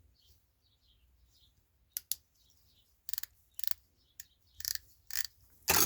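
Small metal hand tools clinking and clicking as they are handled and set down: a scattered series of sharp clicks from about two seconds in, loudest near the end.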